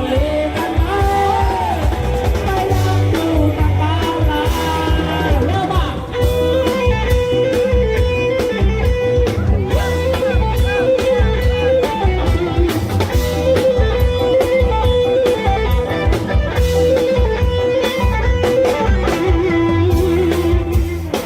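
Loud amplified live band music from a Thai parade-truck band: a heavy bass beat, electric guitar and a wavering melody line. About six seconds in the level dips briefly and the music moves into a fuller, busier section.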